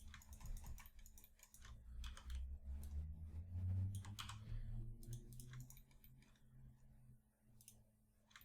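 Faint, scattered clicks of a computer mouse and keyboard, with a low rumble between about two and five seconds in.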